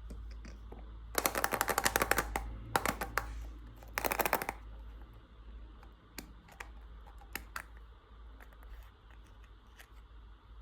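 Three bursts of rapid clicking, like a rattle, in the first few seconds, followed by a few faint scattered clicks.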